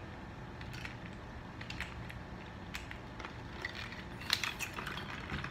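Someone drinking soda from a plastic bottle: scattered small clicks and crinkles of the bottle and swallowing, with a sharper click about four seconds in, over a faint low room hum.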